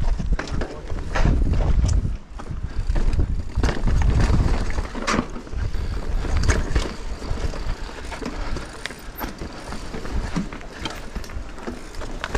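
Mountain bike riding down a rocky singletrack: tyres rolling and bumping over stones, with many sharp clicks and rattles from the bike and an uneven low rumble.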